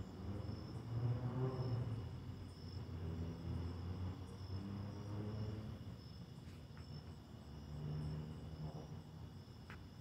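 Crickets chirping steadily, a high insect trill with a pulsing top note. Beneath it a low rumble swells and fades, loudest about a second in and again near eight seconds, with a couple of faint clicks near the end.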